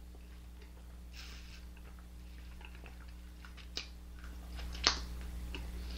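Low steady hum with two sharp clicks, near four and five seconds in, the second much the loudest.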